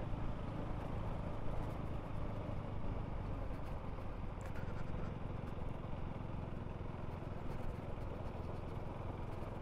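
A vehicle running steadily on the road: a low, even engine hum with road noise.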